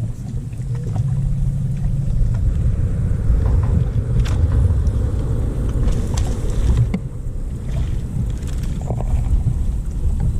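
Boat's outboard motor running with the boat underway, a steady low rumble with wind rushing over the microphone; it comes in abruptly at the start.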